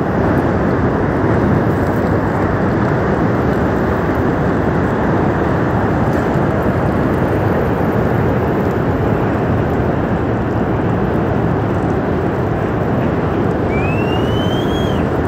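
Steady, loud rushing of a glacier-burst flash flood, a torrent of water, mud and rock surging down the valley. Near the end a short rising whistle-like call sounds over it.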